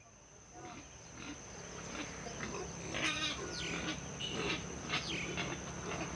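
Outdoor rural ambience fading in, with many short animal calls one after another and a steady high-pitched tone underneath.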